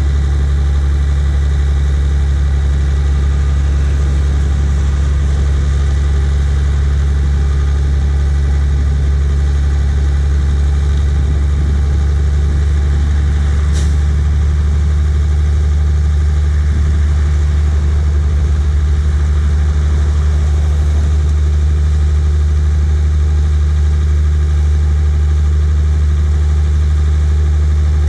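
Tipper truck's diesel engine running steadily while the raised bed tips out a load of earth. There is a brief click about halfway through.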